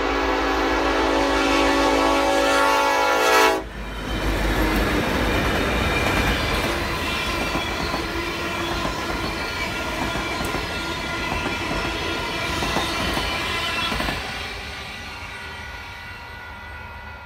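Union Pacific SD70ACe No. 1943's air horn sounds a long chord that cuts off about three and a half seconds in, then the train passes at speed with wheels clicking over the rail joints. The passing noise drops about fourteen seconds in and fades away as the train goes.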